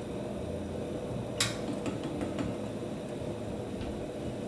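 Metal kitchenware clinking: one sharp clink about a second and a half in, then a few lighter clicks, as cauliflower pieces are tossed in flour in a stainless steel bowl. A steady low hiss runs underneath.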